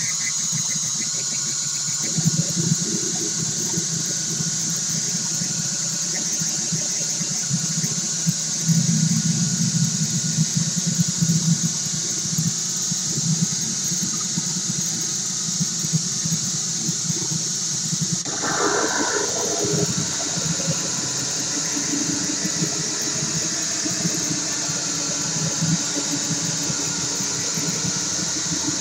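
Homemade four-oscillator square-wave drone synth built on a 40106 Schmitt-trigger IC, playing a steady buzzing, squealing noise drone with a low buzz and a high hiss. About eighteen seconds in a brighter squealing tone cuts in briefly as the oscillators are swept.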